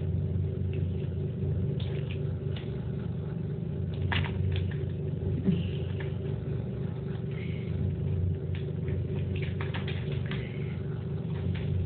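Soapy water sloshing and splashing lightly in a plastic basin as a small parrot is rubbed clean by hand, in short scattered splashes. Under it runs a steady low hum, the loudest thing throughout.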